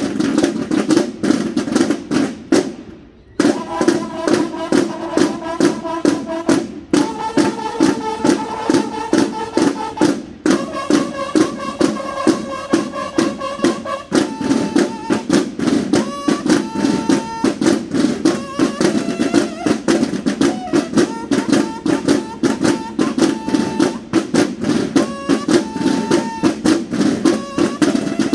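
Banda de guerra drum and bugle corps playing: snare drums beat a fast, continuous cadence, with a short break about three seconds in. Bugles join with long held notes, then a quicker melody of shorter notes from about halfway through.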